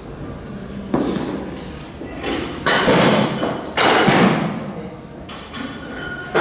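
Heavy thuds on a weightlifting platform during a barbell clean and jerk: the lifter's feet stamping down and the loaded bar landing at the shoulders. There are three main thuds in the first four seconds, each ringing briefly in the large room.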